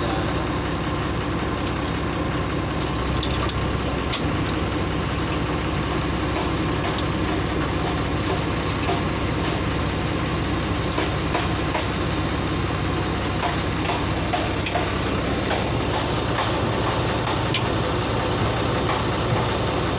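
Truck engine idling steadily, running to build air pressure for the air brakes.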